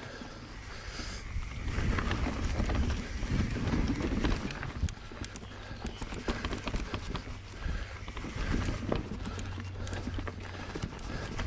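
Mountain bike ridden over a rooty trail, its frame and chain rattling and clattering. A heavy low rumble comes in about two seconds in, and a run of sharp clicks and knocks follows in the second half.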